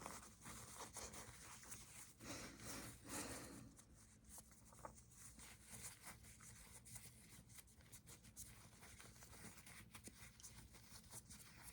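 Near silence with faint rustling and rubbing of a paper tissue being handled, with small scattered clicks.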